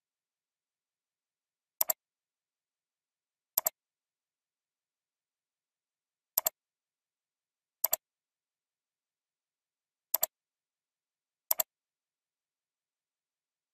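Computer mouse clicks: six of them, one to three seconds apart, each a quick double tick of the button going down and up, with dead silence between.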